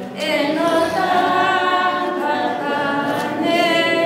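A choir singing unaccompanied, several voices in harmony holding long notes.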